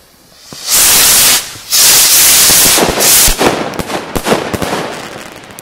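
Xplode XP2216 rocket store firing its rockets off the rack: two loud rushing whooshes of launching rockets about a second in and from about two seconds, then a fading run of sharp cracks and pops as the rockets burst overhead.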